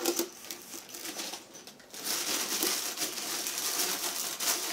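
Plastic wrapping rustling and crinkling as a portable air conditioner's packaged exhaust hose is lifted out of its carton and handled, a few light knocks first, then a steadier rustle from about halfway in.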